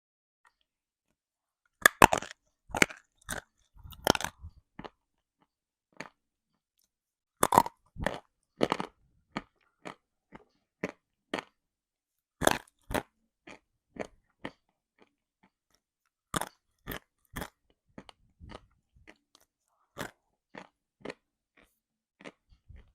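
A person biting into and chewing dry, crumbly lumps of edible earth (chalk and clay), giving crisp, crackling crunches. Loud bursts of bites come about 2 s in, again near the middle and around 12 s, with lighter chewing crunches about every half second between them.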